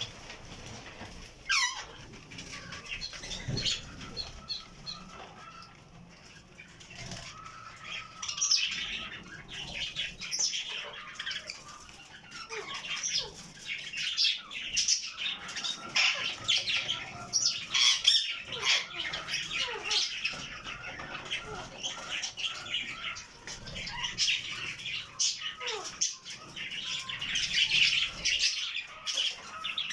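Budgerigars chattering: a dense run of quick high chirps and squawks, with bursts of wing fluttering.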